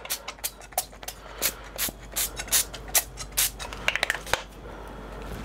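Cooking oil spray spritzed in many short, irregular bursts over a sheet of plastic cling film, mixed with clicks and crinkles of the film being handled.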